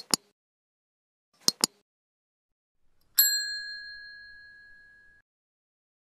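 Two quick double mouse-clicks about a second and a half apart, then a single bright bell ding that rings out and fades over about two seconds. These are the click and notification-bell sound effects of an animated like, subscribe and bell button sequence.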